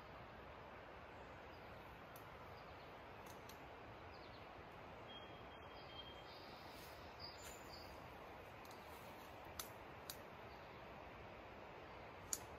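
Near silence: a faint, steady outdoor background hiss, with a brief faint bird chirp about five seconds in and a few soft clicks in the second half.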